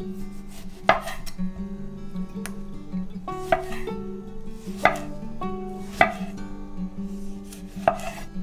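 Chef's knife slicing through a tomato and knocking down onto an end-grain wooden cutting board: about five sharp knocks, unevenly spaced. Soft plucked-string background music plays underneath.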